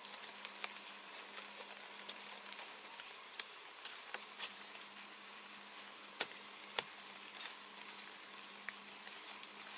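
Steady high insect drone, with scattered sharp clicks and knocks; the two loudest come about six and seven seconds in.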